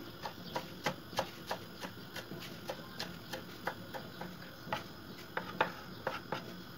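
Kitchen knife chopping fresh parsley on a wooden cutting board: a run of short, sharp knocks of the blade on the wood, about three a second.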